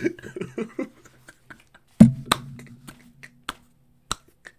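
A man laughing in quick short bursts, then a loud hand clap about two seconds in, followed by a scatter of sharper claps and slaps.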